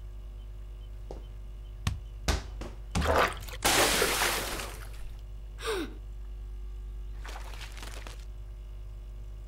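A football thumps a couple of times on a tiled floor, then a glass fish bowl smashes on the tiles about three seconds in, with water and gravel splashing and scattering for a second or two. A shorter rush of noise follows near the end, over a steady low hum.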